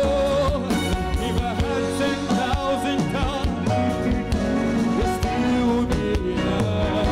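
Live gospel music: a singer over a band, with a steady drum beat.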